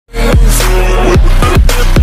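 Electronic dance music with deep bass-drum hits that drop in pitch, starting abruptly just after the beginning.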